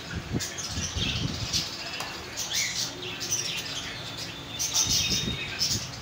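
Many small caged parrots (budgerigars, lovebirds and cockatiels) chirping over one another in quick, overlapping calls, with some low thumps about a second in and again near the end.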